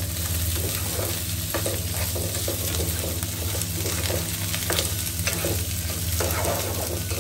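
Peanuts, split dal, onion and green chillies frying in oil in a nonstick pan and stirred with a spatula: a steady sizzle with scattered scrapes and taps of the spatula on the pan, over a steady low hum.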